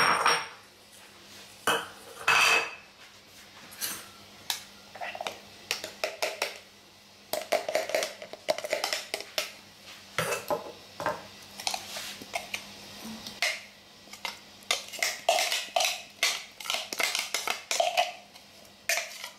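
A metal spoon scraping and tapping inside a clear plastic chopper container as chopped salsa is scooped out, in quick clusters of clicks and scrapes. A few louder knocks near the start come from the chopper's lid and blade being taken off.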